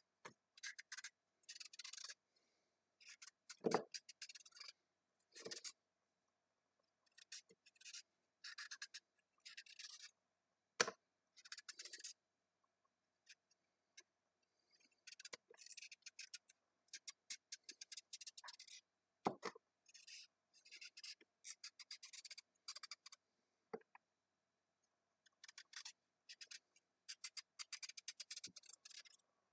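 Faint rasping of a knife blade shaving the skin off a large raw carrot, in short runs of quick scraping strokes with brief pauses between them, and a few sharper knocks along the way.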